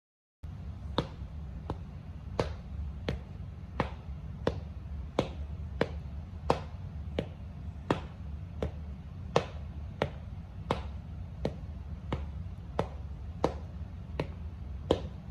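Sharp, evenly spaced taps, about three every two seconds, over a steady low hum.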